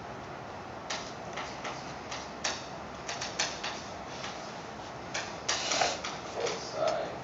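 Chalk tapping and scratching on a chalkboard as an equation is written, in a string of short, irregular strokes and taps that start about a second in.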